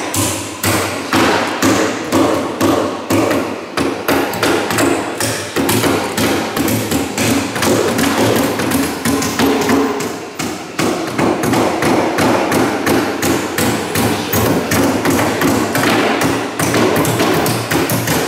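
Hammers striking wood in a rapid, uneven run of blows, several a second, as the wooden king boat is built by hand.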